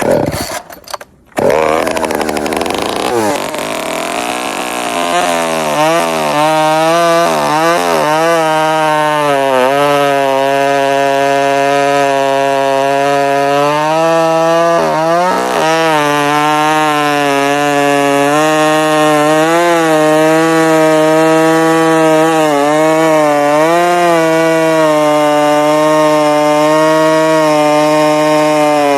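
Straight-piped Husqvarna chainsaw being pull-started: a couple of cord pulls, then the engine catches about a second in. It revs up and down several times, then runs held at high throttle through a cut, the pitch sagging briefly now and then.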